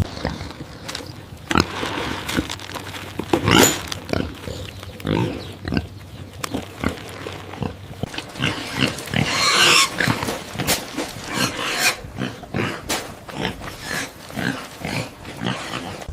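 Pig grunting in short, irregular calls, with a couple of longer, louder squeals, one about three seconds in and one near the middle.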